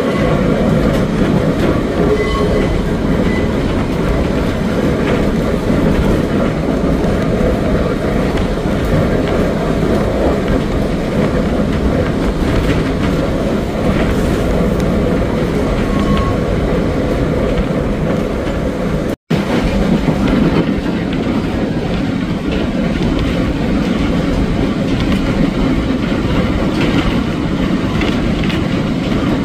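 Tram running on rails: a steady, loud rumble of wheels and car body with clattering over the rail joints. It breaks off abruptly for a moment about two-thirds of the way through, then carries on.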